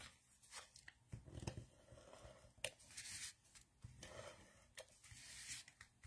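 Faint sounds of a tape runner laying adhesive on the back of a cardstock panel, with paper rustling and a few sharp clicks.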